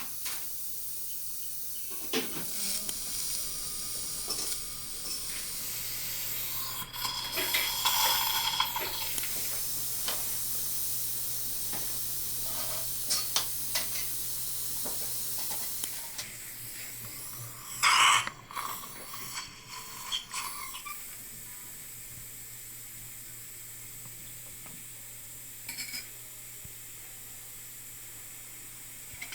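Steady hiss of dental surgical suction, with louder spurts of slurping about seven seconds in and again near eighteen seconds; a low hum joins about six seconds in.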